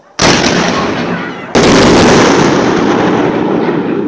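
Fireworks exploding: two loud booms, one just after the start and a louder one about a second and a half in. Each is followed by a long rumble that slowly dies away.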